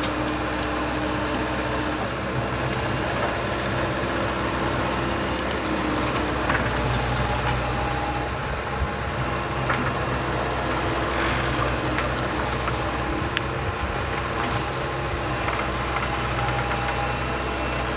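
Bobcat skid steer engine running steadily as the machine works, with a few short sharp knocks and cracks scattered through the middle.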